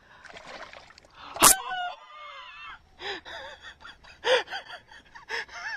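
A man gasping and panting in short, breathless, voiced bursts, repeated several times, out of breath with excitement over a big fish. About a second and a half in there is one sudden loud thump.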